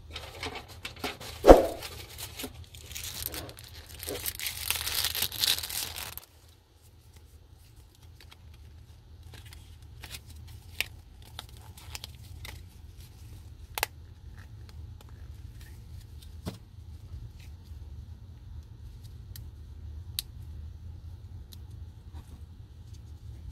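Plastic SIM card packaging being torn open and crinkled for about six seconds, with a single knock about a second and a half in. Then quiet handling with a few sharp clicks as a nano SIM is pressed out of its plastic carrier card.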